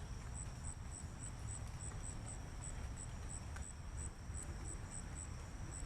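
An insect, likely a cricket, chirping steadily at a high pitch, about three to four chirps a second, over a low steady rumble.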